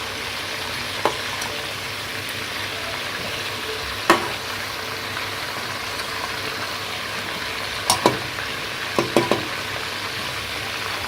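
Whole small desi chickens frying in hot oil in a pan: a steady sizzle with a few sharp pops of spattering oil, one about a second in, another around four seconds, and a quick cluster near the end.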